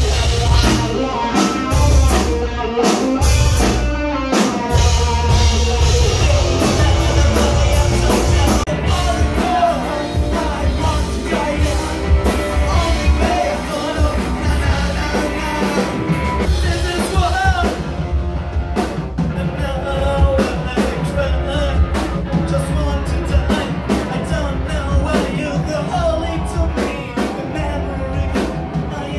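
Rock music with a drum kit and singing, cutting in abruptly at the start and running at a steady loud level.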